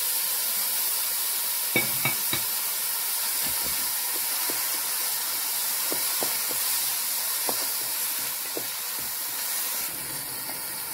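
Chopped tomatoes and onions sizzling in hot oil in a steel pan. A wooden spatula stirs them, knocking and scraping against the pan now and then. The sizzle eases slightly near the end.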